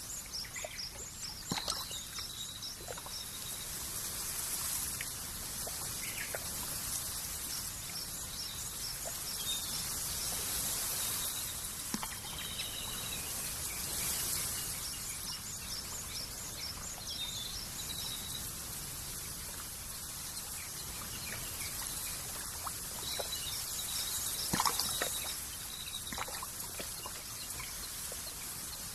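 Countryside nature ambience: small birds chirping in runs of short, high, repeated calls over a steady soft hiss, with a few faint ticks.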